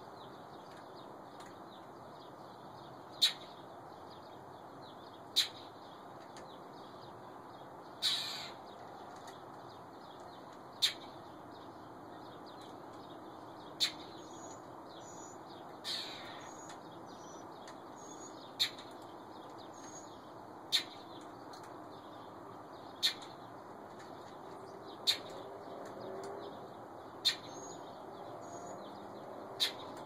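A bird repeats a short, sharp call about every two seconds, with two longer, louder calls about eight and sixteen seconds in. Fainter high chirps come in between.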